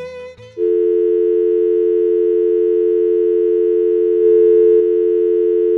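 Music cuts off about half a second in and a loud, steady electronic tone takes over: two pitches sounding together, like a telephone dial tone. It swells briefly near the end.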